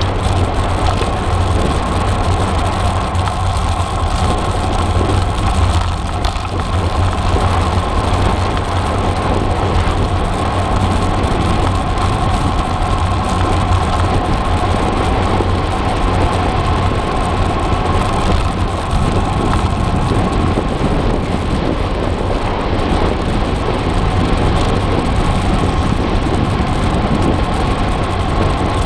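Steady, loud rush of wind on the microphone with rolling noise from a cross bike being ridden along a road, unbroken throughout.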